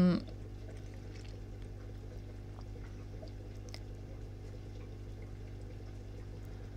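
Room tone: a steady low electrical hum with a faint hiss, and a couple of faint ticks.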